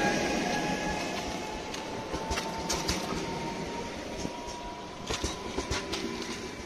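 Newag Impuls electric multiple unit rolling past at low speed: a steady electric whine over the running noise, with irregular sharp clicks of the wheels over rail joints from about two seconds in, more frequent in the second half.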